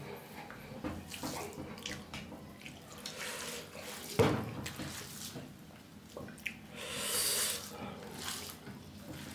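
Fingers mixing cooked rice with curry on a stainless steel plate: soft, wet squishing and rustling of rice, with fingertips pressing against the plate. One sharper knock about four seconds in, and a short swell of hiss around seven seconds.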